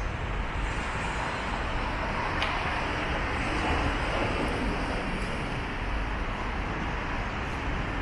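Steady city road traffic noise from passing vehicles.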